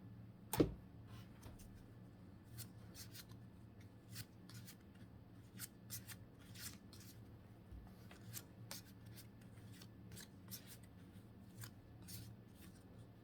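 Pokémon trading cards being slid and flicked through one at a time in the hand: a run of faint, irregular soft clicks and slides, with one louder knock about half a second in.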